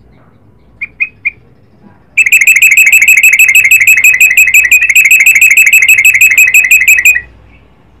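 Caged yellow-vented bulbul giving three short notes, then a loud, rapid, even trill of high repeated notes that lasts about five seconds, the long rolling call that keepers call 'ropel panjang'.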